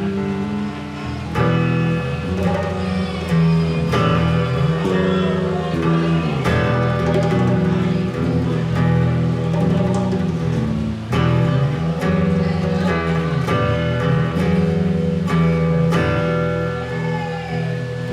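Live guitar-led music playing an instrumental passage with no vocals, chords changing every second or so over a steady beat.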